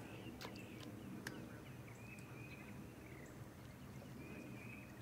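Faint evening outdoor ambience: scattered short bird chirps over a low steady rumble, with a couple of sharp clicks, the louder one about a second in.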